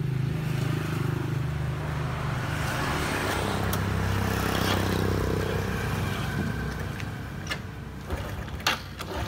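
Motorbike engines running steadily, with one growing louder and then fading about halfway through as it passes.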